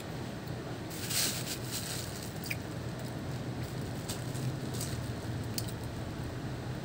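Pomelo being handled and eaten: soft squishy crackles and a few light clicks as the juicy pulp is pulled apart. A brief rustle about a second in, over a steady low hum.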